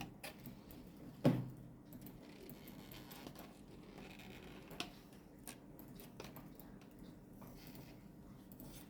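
Faint clicks and taps of small laptop parts being handled while an M.2 NVMe SSD is fitted into its slot, with one louder dull thud just over a second in.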